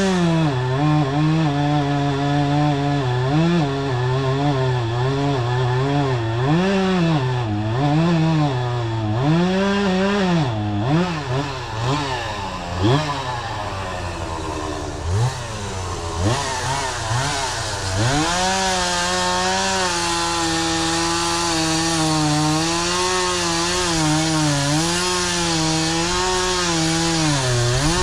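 Chainsaw cutting pine, its engine pitch repeatedly dipping and recovering as the chain bites into the wood. About halfway through it drops back toward idle for a few seconds, then revs up again and runs steadily through the cut.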